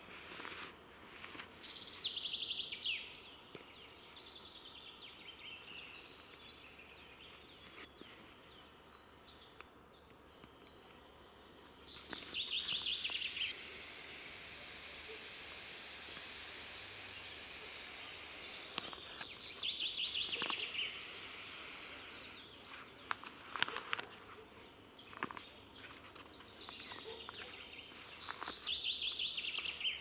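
A few short trilled songbird calls, and the nylon fabric of a stuff sack being handled and crumpled, a rustling hiss that runs for several seconds in the middle.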